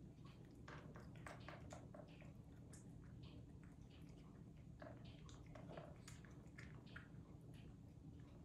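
A cat eating canned wet food (turkey) from a bowl: faint, irregular wet chewing clicks, several a second.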